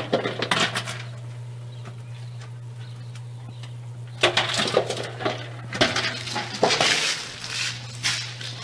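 A dog pushing and batting a capped plastic bottle filled with dry dog food across a concrete floor: hollow plastic knocks and scrapes with the kibble rattling inside. The knocks come in a burst at the start and again, more busily, from about four seconds in, over a steady low hum.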